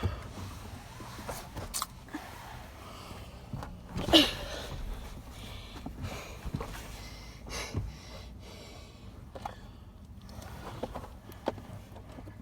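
Scattered clicks, knocks and rustling from a child car seat being fitted into a car's back seat, with one louder sound about four seconds in.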